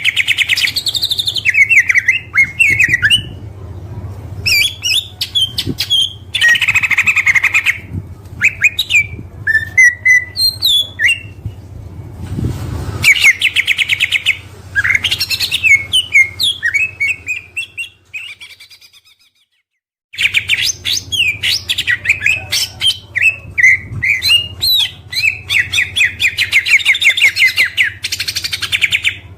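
Oriental magpie-robin (kacer) singing loud, varied whistled phrases with fast trills and rapid runs of repeated notes, over a steady low hum. The song fades out about two-thirds of the way through, stops for about two seconds, then starts again.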